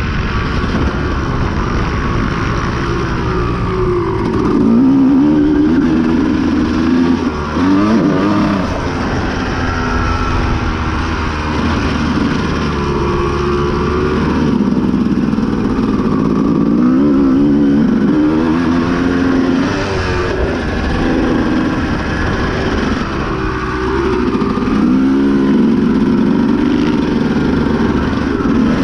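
Honda CR250 two-stroke dirt bike engine under hard riding, its pitch rising and falling again and again as the throttle is opened and closed and the gears are run through.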